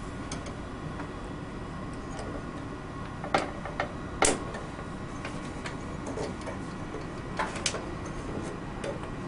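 Scattered light clicks and taps of laboratory glassware being handled: a round-bottom flask fitted onto a ground-glass joint and a plastic joint clip being fitted over it. The sharpest clicks come in a cluster about three to four seconds in, with a few more near the end.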